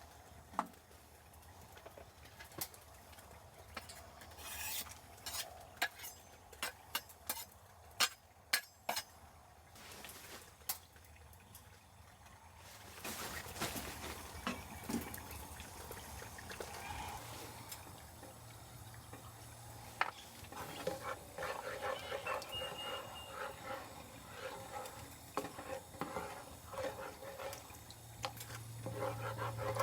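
Camp cooking: a run of sharp clinks and knocks of utensils against cookware, then, from about halfway, a denser stretch of food frying in a pan with more clattering.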